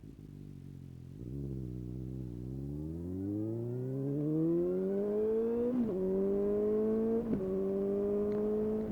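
2019 Suzuki GSX-S750's inline-four engine through a Yoshimura SQ11 exhaust with no dB killer and a removed catalytic converter. It pulls away from low revs, the pitch climbing steadily, with two quick upshifts about six and seven seconds in, then keeps rising.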